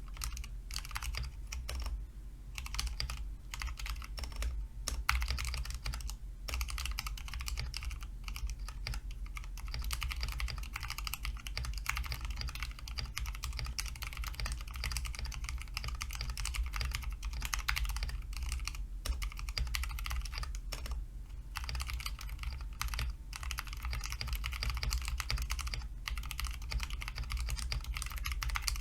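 Fast, continuous typing on a mechanical keyboard, dense key clicks with a few brief pauses.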